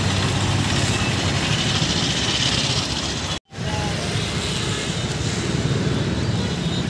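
Busy road traffic of buses, cars and motorcycles running at close range, a steady dense wash of engine and road noise. It cuts out for a split second about halfway through.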